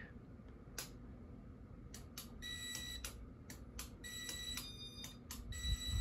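Casablanca Inteli-Touch ceiling fan's electronic control running its demonstration program. There are sharp clicks, then electronic beep tones that step to different pitches.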